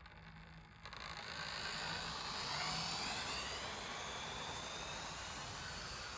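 OO-gauge Lima Class 50 model locomotive, refitted with a CD motor, running past on the track with a steady whir of motor and wheels; it grows louder about a second in, with a faint whine that falls in pitch as the train passes. The even whir fits a smooth-running remotored loco.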